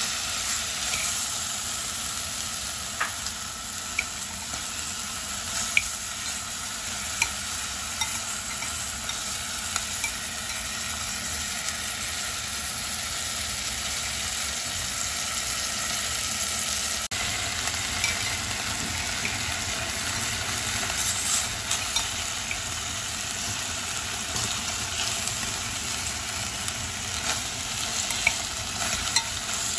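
Pork rib and belly chunks sizzling as they sear in hot oil in a stainless steel pot: a steady frying hiss with a few sharp clicks scattered through it.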